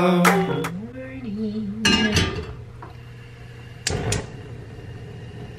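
A song fades out in the first second. Then objects are handled at a kitchen counter, with two sharp knocks about two and four seconds in over a faint steady hum.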